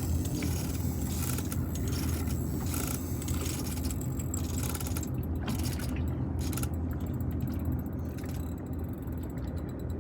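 Steady low hum of a small fishing boat's engine, with the clicking and scraping of a fishing reel as a hooked fish that feels large is fought.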